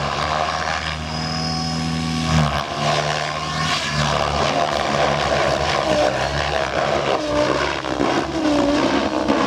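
Compass Chronos 700 radio-controlled helicopter flying, its motor and rotor giving a steady hum that breaks off about two and a half seconds in, then a whine that rises and falls again and again as it manoeuvres.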